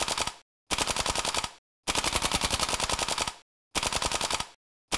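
GHK RPK gas blowback airsoft rifle firing in full auto, its heavy bolt cycling with every shot. It makes a fast, even rattle of shots in several short bursts of about a second each, each one cut off abruptly.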